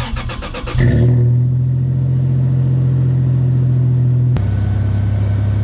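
2001 Toyota Tacoma's 3.4-litre V6 cold-started through a Flowmaster 40 Series muffler. The starter cranks briefly, the engine catches just under a second in, and it settles into a loud, steady fast idle. A sharp click comes about four seconds in, and after it the idle note drops slightly.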